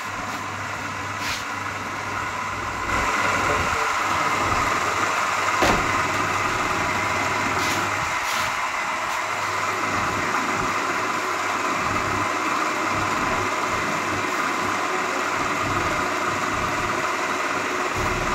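A steady engine-like drone that gets louder about three seconds in, with a few short sharp clicks scattered through the first half.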